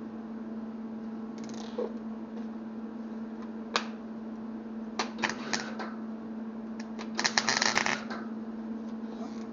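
MIG wire-feed welder humming steadily once switched on, with a few short arc crackles about five seconds in and a crackling weld burst lasting about a second near seven seconds in, on thin metal.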